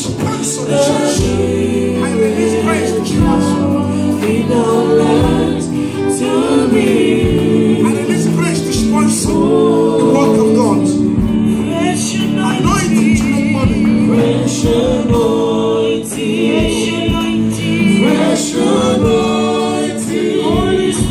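Church congregation singing a gospel worship song together, continuous and loud.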